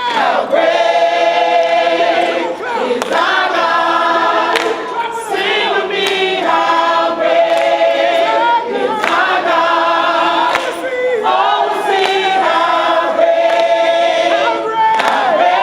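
Choir singing a worship song in phrases of held notes, each lasting a second or two.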